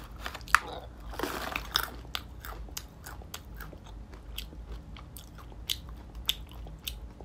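A person chewing almonds: a run of small, irregular crunches.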